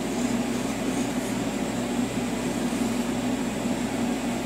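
Steady hum of a TIG welding machine's cooling fan running, with an even low drone underneath.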